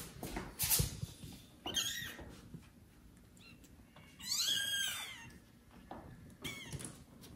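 Very young kittens mewing: a short high mew just under two seconds in, and a longer, louder mew that rises and falls about four seconds in. A few brief rustles come from the kittens scrabbling on the bedding.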